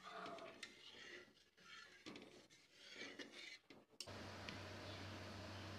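Faint scraping of a flat metal spatula stirring thick paneer gravy in a pan, in short uneven strokes. About four seconds in, it gives way abruptly to a steady faint hiss with a low hum.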